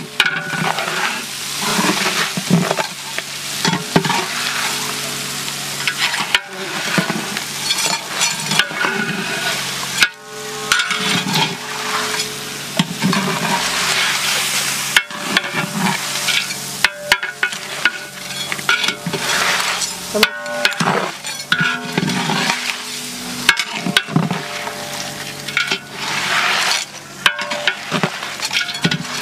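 Small whole crabs being stirred with a spatula in a large pot of hot masala: a steady sizzle broken by repeated scrapes and knocks of the spatula against the pot.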